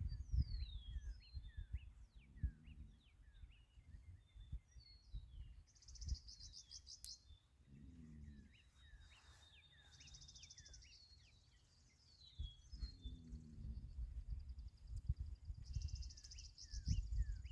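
A sleeping old horse snoring faintly, low breaths about every five seconds, which the owner likens to a truck's air brakes. Small birds chirp and trill throughout.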